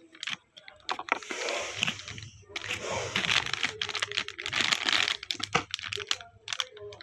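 Crax Rings snack packet, a foil-lined plastic bag, crinkling and crackling as it is handled and turned over, with many sharp little clicks. The dense crinkling runs from about a second in to past five seconds, then eases into scattered crackles.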